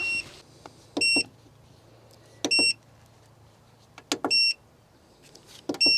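The solar inverter's built-in buzzer gives four short, high beeps about a second and a half apart, each just after a faint click, as buttons on its control panel are pressed to change its settings. A faint low hum runs underneath.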